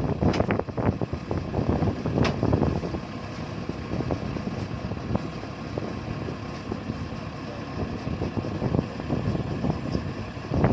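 Kubota combine harvester running steadily as it harvests lodged rice, with a couple of sharp knocks in the first few seconds.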